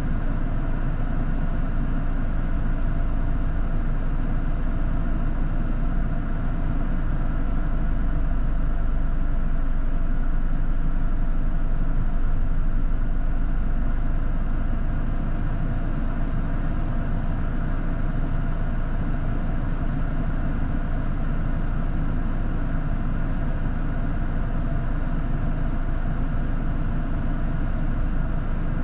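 A 4x4 vehicle's engine running steadily, with a constant low rumble and faint steady tones.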